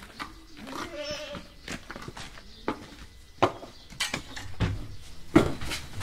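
A goat bleats once, a wavering call about half a second in, over footsteps crunching on gravel, with a louder knock near the end.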